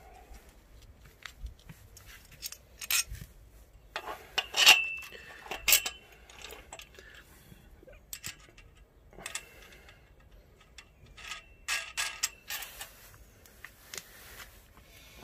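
Metal hook hardware clicking and clinking against the powder-coated steel tube of a hammock stand as it is fitted. Scattered clicks come in clusters, and two sharper clinks ring briefly, one about a third of the way in and one near three-quarters.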